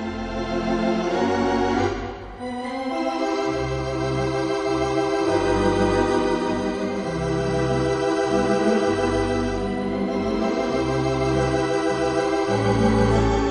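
Organ music: sustained chords over a bass line that steps from note to note, with a brief dip in loudness about two seconds in.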